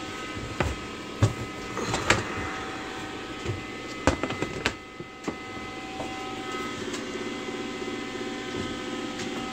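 A steady motor hum holding several fixed tones, with a handful of sharp clicks and knocks over the first five seconds or so as the plastic tub and its fittings are handled.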